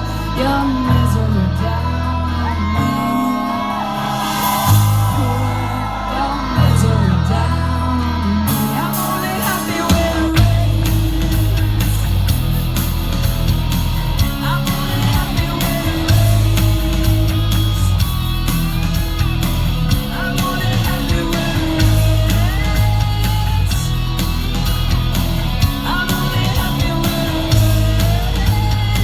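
Live rock band playing, with a woman singing lead over bass and drums. The sparse opening fills out into the full band with a steady drumbeat about ten seconds in.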